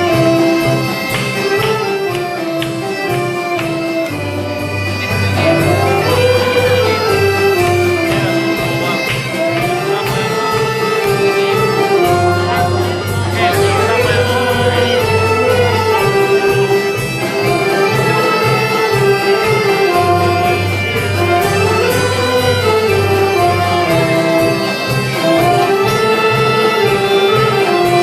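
Saxophone ensemble playing a Galician corridiño dance tune: a flowing melody that rises and falls over a bass line that shifts every few seconds.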